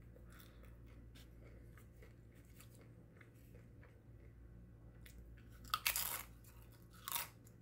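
Tortilla chip bitten with a loud crunch about six seconds in, and a second crunch about a second later, after a few seconds of faint chewing.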